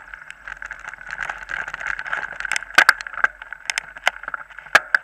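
Mountain bike rolling fast over a bumpy dirt trail, heard from a camera mounted on the rider: a steady rattling road noise with sharp knocks from bumps, the loudest about three seconds in and again near the end.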